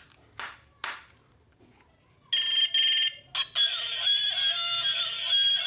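A couple of short scratchy handling noises, then an electronic toy's speaker gives a loud buzzy beep about two seconds in. After a brief break it goes into a ringtone-like electronic tune.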